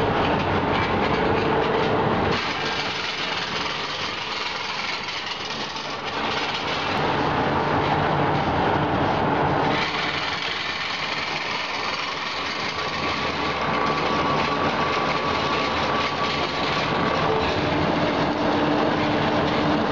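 Machines of an automatic wall bolt production line running with steady mechanical noise that changes character about two and ten seconds in. The later part comes from a thread rolling machine, whose two grooved dies roll a thread onto steel bar stock under coolant.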